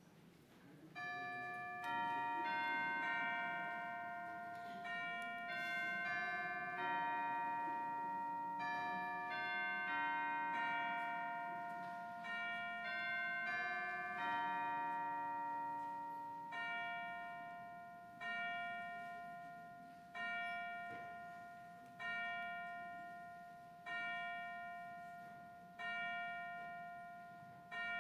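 Bell chimes: a short melody of struck, ringing notes, then a single bell note struck over and over about every two seconds, each strike ringing away before the next.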